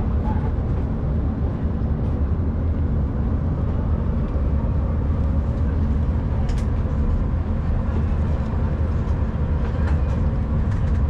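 Steady low engine drone heard from on board a moving vehicle, loud and unbroken, with a faint click about six and a half seconds in.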